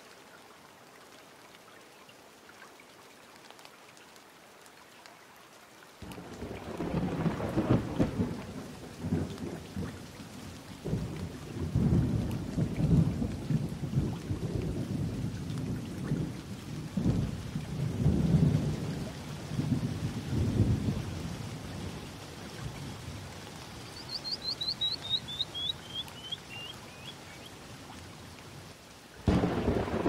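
Rain hissing steadily, then from about six seconds in, rolling thunder in long low rumbles that swell and fade. Later a short run of high chirps falls in pitch, and another loud rumble starts suddenly just before the end.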